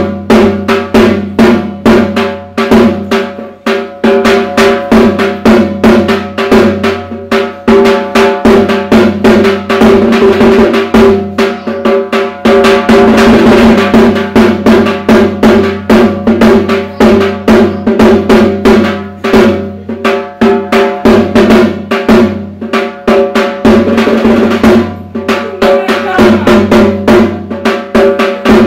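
Dhak, the large Bengali barrel drum beaten with thin sticks, played in a fast, dense, unbroken rhythm for puja.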